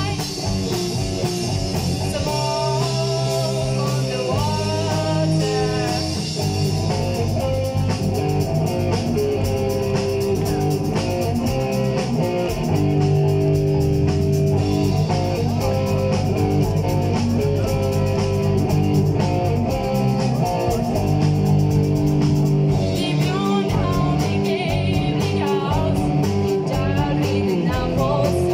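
Live rock band playing a cover song, with electric guitars, bass and drum kit, and a woman singing.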